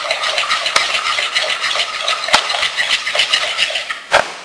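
A whisk stirring thick pancake batter of flour and half the milk in a mixing bowl. The strokes are quick, even and scraping, with a few sharp taps against the bowl, and they fade near the end into a single sharp knock.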